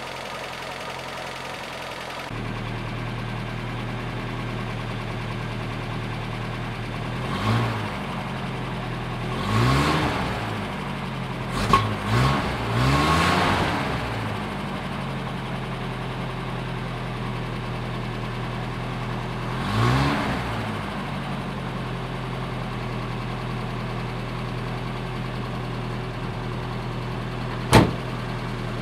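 Toyota 20R four-cylinder engine, fitted with a new Flowtech header but still on the stock exhaust pipe, idling steadily and blipped about six times, three quick revs close together in the middle. A sharp click near the end.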